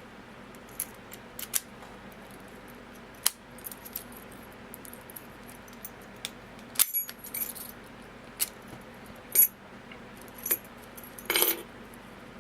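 Scattered sharp metal clicks and short jingling rattles of lock picks and tension tool working in an American Lock Series 1100 padlock, with a longer rattle near the end.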